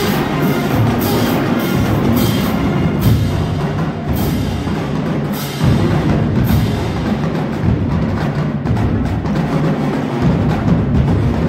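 HBCU marching band playing: drumline snares and bass drums with repeated cymbal crashes over sousaphones and brass.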